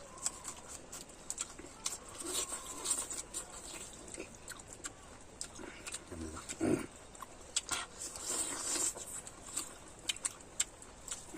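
Close-up chewing and lip-smacking of someone eating pork offal (intestine, stomach and liver): a string of short clicks at an irregular pace.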